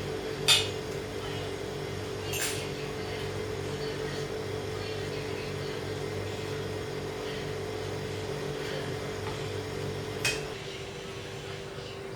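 Gas combi steamer running with a steady mechanical hum, broken by three sharp clicks, the first near the start and the last near the end.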